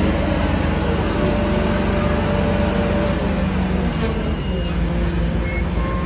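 Steady engine running, like a heavy truck, with a constant low rumble.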